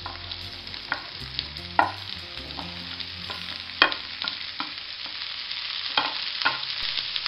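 Shredded cabbage, capsicum and carrot sizzling in hot oil in a non-stick pan on high flame while being stirred with a wooden spatula. Several sharp knocks and scrapes against the pan cut through the steady sizzle, the loudest about four seconds in.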